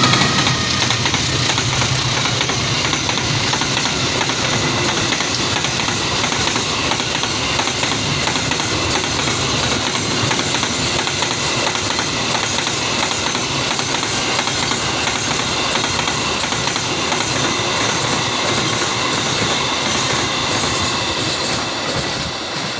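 Freight train wagons rolling past, their wheels running on the rails in a steady loud rumble with thin, high ringing tones over it, easing slightly near the end.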